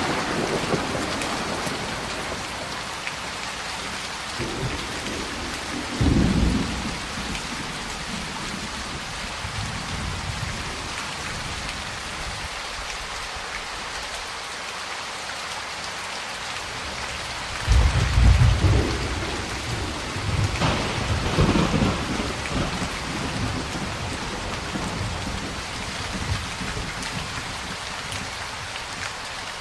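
Steady heavy rain with rolling thunder: a rumble fading away at the start, a short clap about six seconds in, and a longer rumble from about 18 to 22 seconds.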